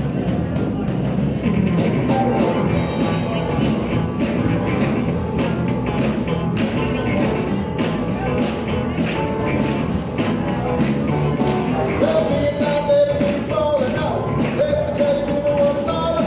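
Live rock band playing a song with a steady drum-kit beat and electric guitars, with a held lead line in the last few seconds.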